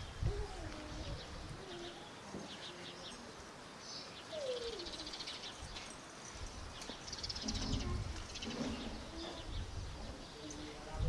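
Faint birdsong: small birds chirping and twittering on and off, with a dove cooing.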